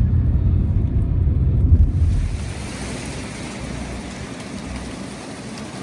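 Strong wind gusting over the microphone: a heavy low rumble that eases about two seconds in to a steadier, quieter rushing hiss.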